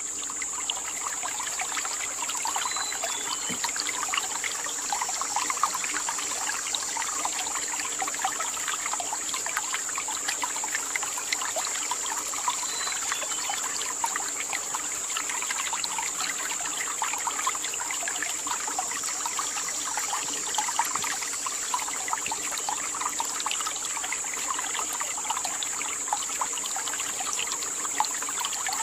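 A small forest stream trickling and babbling over rocks, with a steady high-pitched drone over it.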